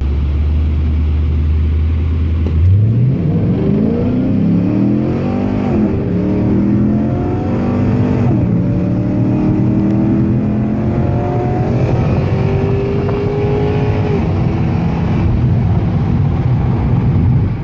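V8 engine of a Pontiac G8 GXP heard from inside its cabin during a roll race against a V8 Mustang GT. It cruises steadily for a couple of seconds, then goes to full throttle and revs up through the gears, the pitch dropping back at each of three upshifts.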